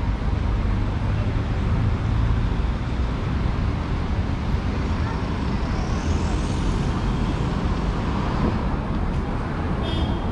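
City street traffic: cars running past in a steady rumble, with a passing vehicle rising in pitch about halfway through.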